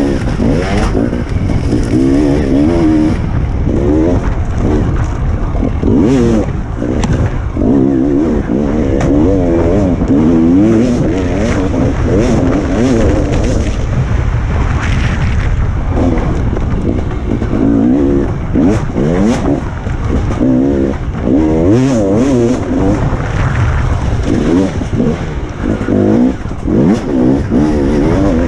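Enduro dirt bike engine, heard from the rider's helmet, revving up and dropping back again and again as the rider works the throttle through the ride.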